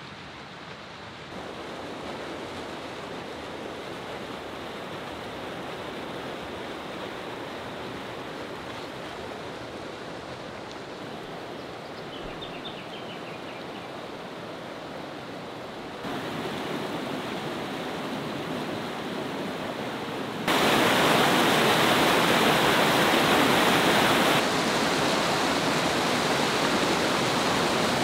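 Water rushing over rocks in a river, a steady rush that gets louder in steps and is loudest about twenty seconds in.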